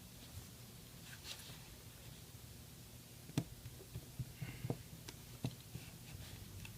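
Faint small clicks and taps of a precision screwdriver and tiny screws being fitted into the side of an iPhone 6 Plus frame, with the sharpest click about halfway through and several lighter ticks after it.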